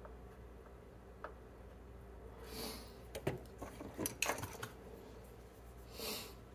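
Desoldering parts off a circuit board: two short hissing swells and a cluster of small clicks and taps of tools against the board, over a low steady hum.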